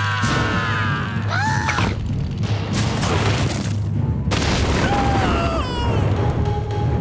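Cartoon rumbling and booming sound effects as a giant worm bursts out of the ground, with heavy crashing surges about two to four seconds in, under music and short high gliding cries.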